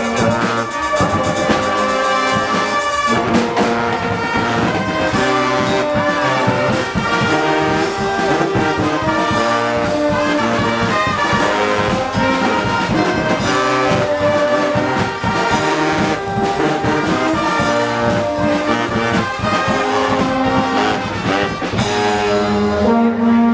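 A Guggenmusik carnival band playing loudly: trombones and trumpets carry the tune over a sousaphone, a drum kit and bass drums.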